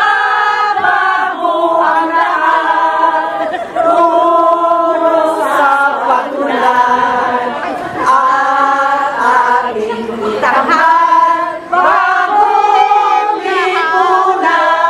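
A group of people singing a Tagalog rally song together in unison, in long held notes that step from one to the next.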